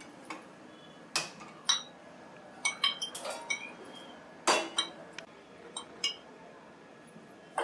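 Sharp metallic clicks and clinks: a hand-held spark gas lighter clicking at the stove burner, then a metal kadhai set down with a loud clank on the gas stove's steel pan support about four and a half seconds in, followed by a few lighter clinks.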